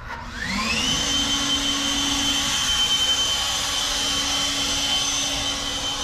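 A motor-driven machine whining up to speed over about the first second, then running steadily with a high-pitched whine over a noisy rush.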